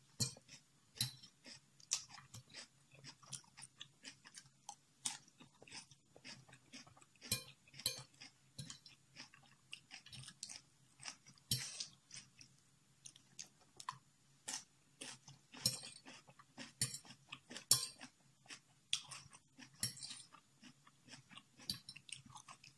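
A person chewing mouthfuls of spicy instant noodles and crunchy vegetables, with many short, irregular wet clicks and crunches.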